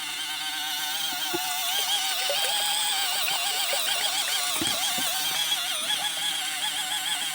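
Kmart 12 V portable washing machine agitating a load in water: a small motor's whine that wobbles up and down in pitch over a swishing haze, with a couple of soft knocks.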